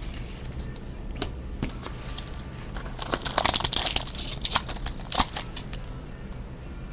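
Foil wrapper of a trading-card pack crinkling and tearing as it is opened: a few light clicks first, then a dense crackle about three seconds in and a couple of sharp crinkles a second or so later.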